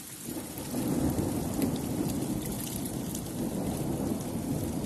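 Thunderstorm: a low, rolling rumble of thunder swells up within the first second and carries on over a steady patter of rain or hail.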